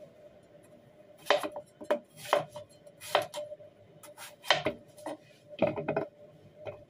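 A kitchen knife cutting through peeled hairy gourd (cit kwa) into round slices, each cut ending in a sharp knock on the cutting board: about seven cuts at an uneven pace, under a faint steady hum.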